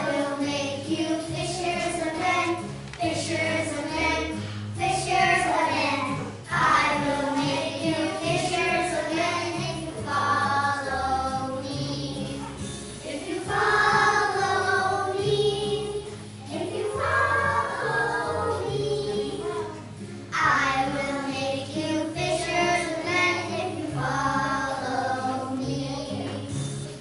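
A group of preschool children singing a song together over an instrumental accompaniment with a low bass line, in phrases of a few seconds each.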